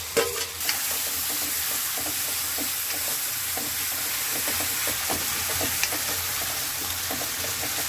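Chopped onion, garlic and green chilli frying in hot oil in a metal kadhai: a steady sizzle, with light scraping of a metal spoon stirring the pan. The onions are being sautéed as the base of a curry masala.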